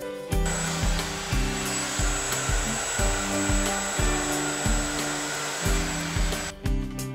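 Electric router running, routing hinge mortises into a wooden door jamb: a steady high whine that starts about half a second in and cuts off about six and a half seconds in. Background music with a steady beat plays throughout.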